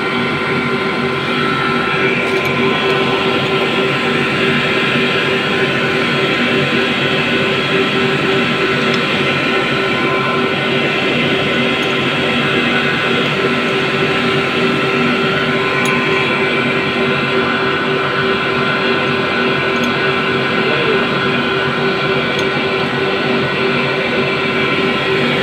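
Steady machine drone with a few held tones, unchanging in level throughout.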